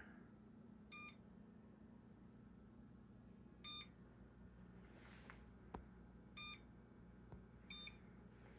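Short high-pitched electronic beeps from an RC helicopter set's warning beeper, four single beeps at uneven intervals of one to three seconds; the owner wondered whether it is a low-battery warning, though the battery showed full.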